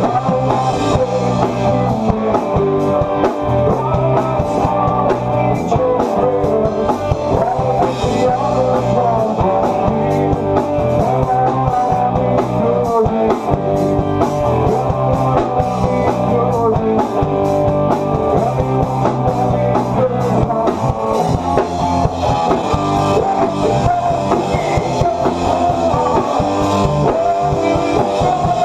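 Rock band playing live in a small rehearsal room: loud electric guitars, one of them a Telecaster-style guitar, over a full drum kit with regular cymbal hits.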